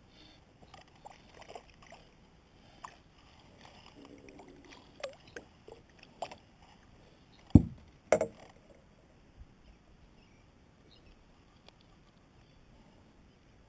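Small clicks and rustles of fly line and gear being handled in a plastic kayak, with two heavy thumps against the kayak about half a second apart just past the middle.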